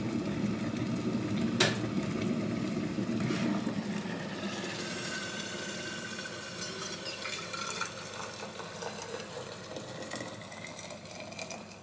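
An electric kettle with a steady rushing boil and a sharp click about a second and a half in. Hot water is then poured from the kettle into an insulated flask, and the pouring rises steadily in pitch as the flask fills.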